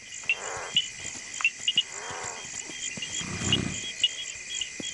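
Crickets chirping steadily at night, with three soft, low animal calls about half a second, two seconds and three and a half seconds in, the last the deepest.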